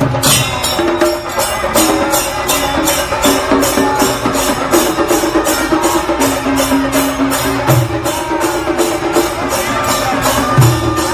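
Festival drum music: barrel drums beat a fast, even rhythm of about three strokes a second, under a held melody line that steps from note to note.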